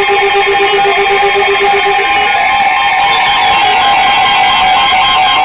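Weather alert radios sounding their alarm for a severe thunderstorm warning: several steady electronic tones held together, layered with rapid beeping. A lower pulsing beep stops about two seconds in.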